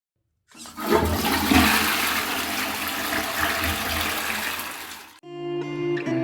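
Toilet flushing: a loud rush of water starts about half a second in and cuts off abruptly about five seconds in. Guitar music begins right after.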